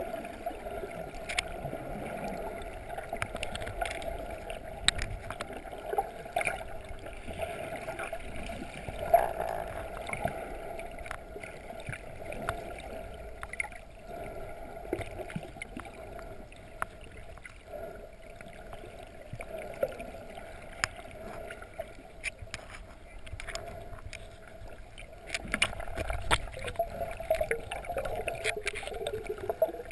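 Muffled underwater sound picked up through a GoPro HD Hero's waterproof housing during a free dive: a steady hum with scattered sharp clicks. In the last few seconds it gives way to a louder low rumble of moving water.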